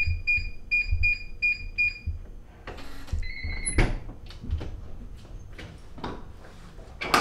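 Digital keypad door lock: six short high beeps as the code is entered, then a brief electronic unlock tone. The door then opens with a series of clicks and knocks, with a sharp clack near the end.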